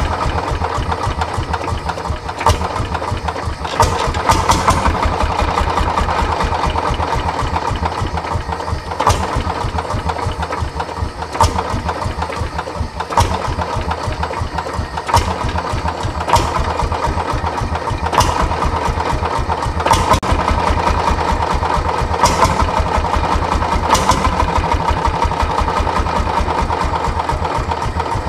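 Single-cylinder two-stroke hot-bulb engine of a 1937 Landini tractor idling with a steady, rapid thudding beat, broken every second or two by a sharper, louder bang, while a blowtorch still heats its hot bulb.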